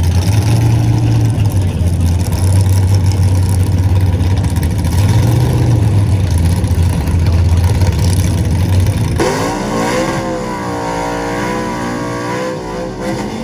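Drag-race car engines: a loud low rumble, then about nine seconds in an engine revving, its pitch rising and wavering.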